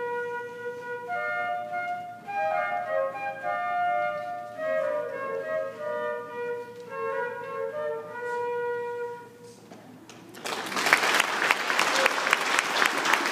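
Student flutes playing a melody together, the notes ending about nine and a half seconds in. Audience applause breaks out about a second later.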